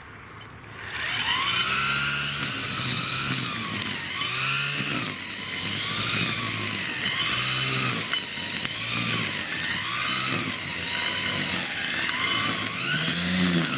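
Corded electric string trimmer starting up about a second in and cutting tall grass, its pitch rising and falling with each sweep of the head.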